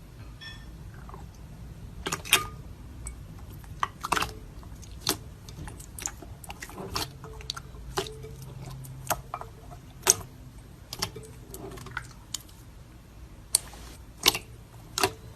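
Slime being handled and squeezed, giving irregular sharp clicking pops, about one or two a second, over a low background.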